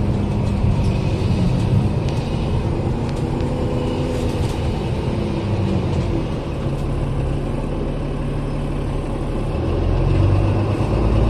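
Bus engine and road rumble heard from inside the passenger cabin, a steady low hum that grows louder near the end.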